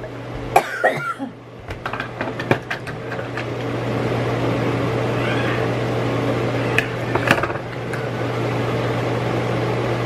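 A plastic eyebrow-makeup compact being handled and opened, with a few sharp clicks, over a low steady hum. A steady noise comes up about three seconds in and holds.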